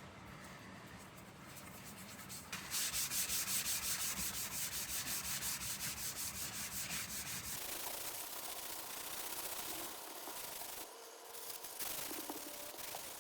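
Nakiri knife's steel blade being rubbed by hand with an abrasive in quick back-and-forth strokes, about five a second, as the blade is polished. The rubbing starts a couple of seconds in, softens later on and breaks off briefly before resuming.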